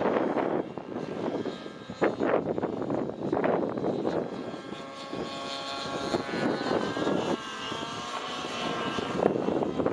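Outrage Velocity nitro RC helicopter flying aerobatics: engine and rotor blades swell loud and soft over and over, with a steady engine whine in the middle that bends up and down in pitch.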